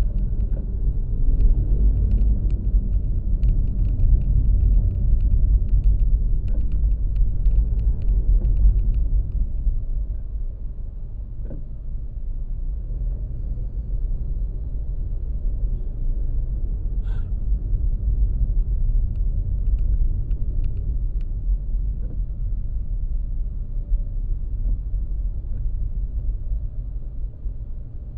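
Steady low rumble of a moving road vehicle: engine, tyre and wind noise. It eases a little about a third of the way in.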